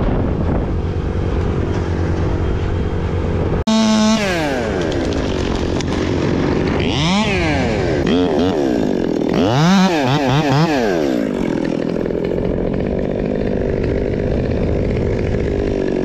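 Top-handle two-stroke chainsaw running at a steady low speed, then, after an abrupt cut, revved up and down several times and held at high speed while cutting through silver birch.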